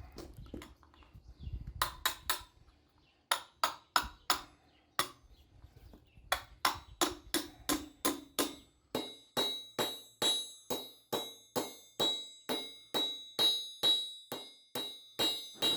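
Hammer blows on an anvil, forging a small steel lamp stake. Scattered strikes come first, then a steady run of about two to three blows a second with a bright metallic ring over the second half.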